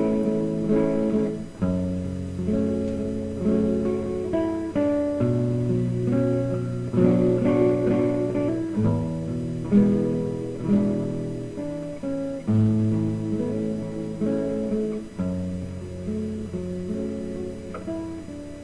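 Instrumental music led by acoustic guitar: plucked notes and chords that ring and fade over held low bass notes, with no singing.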